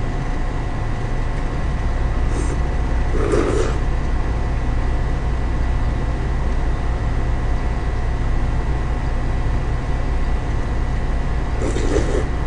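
Steady low hum in the room, with brief sounds of noodles being slurped and eaten about three seconds in and again near the end.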